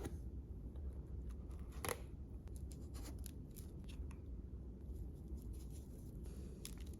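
Faint scraping and light clicks from small objects being handled, over a low steady hum, with one sharper click about two seconds in.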